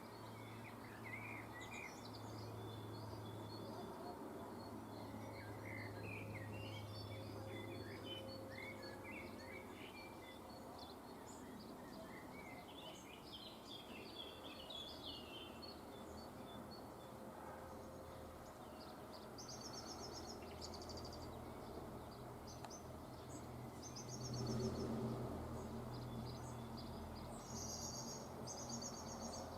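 Small songbirds chirping, with rapid high trills in the second half, over a steady low background hum.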